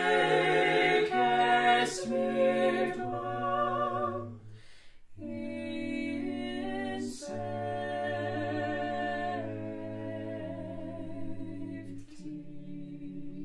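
Small mixed vocal quartet, one female and three male voices, singing unaccompanied in harmony. There is a short break for breath about five seconds in, then long held chords to the end.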